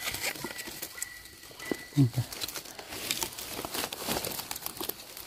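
Crackling and rustling of dry leaf litter and twigs as mushrooms are picked from the forest floor by hand, with a brief low grunt about two seconds in.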